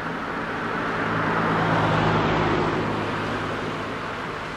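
A car driving past close by, its tyre and engine noise swelling to a peak about two seconds in and then fading. A steady low engine hum runs underneath.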